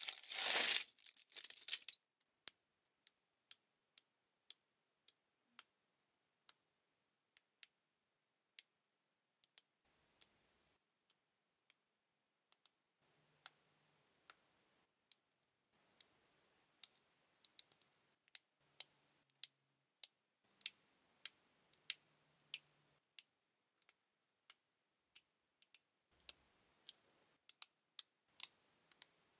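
LEGO bricks being pressed together by hand, each joint snapping with one sharp click, at an uneven pace of roughly one to two clicks a second. A short burst of rustling clatter in the first two seconds is the loudest sound.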